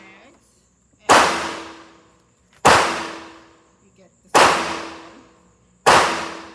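Gunshots at an indoor shooting range: four shots at a steady pace, about a second and a half apart, each ringing out and echoing in the room for about a second.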